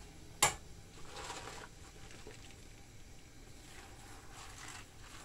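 A sharp click about half a second in, then soft rustling and wet handling as fresh chard leaves are gathered and lowered into a pot of hot water.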